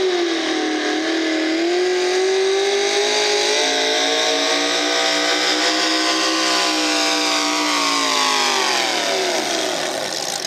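V8 engine of a Cockshutt 40 hot rod pulling tractor running at full throttle as it drags the weight-transfer sled down the track. Its pitch sags briefly in the first second or two, holds, then falls away over the last two seconds as the revs drop.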